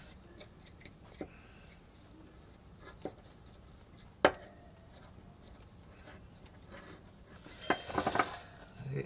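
Small metal spoon clinking and scraping in a stainless steel cup while rubber powder and glue are mixed into a repair paste, with a few sharp clinks, the loudest about four seconds in. Near the end a quick run of clinks and knocks as the cup is handled and set down.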